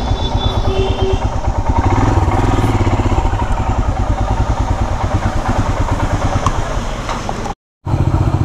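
Motorcycle engine running at low revs with a steady, rapid low pulsing as the bike is ridden at walking pace and manoeuvred to park. The sound drops out for a moment near the end, then carries on the same.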